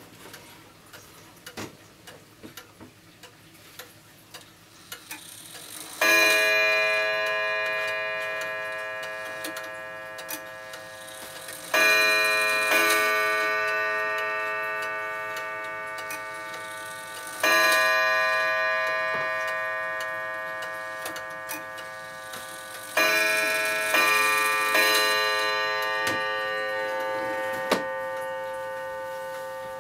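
Antique German oak-cased wall clock ticking, then striking as its hands are moved on by hand. There are five ringing strokes, each fading slowly, the first four about six seconds apart and the last two about a second apart. A sharp click comes near the end.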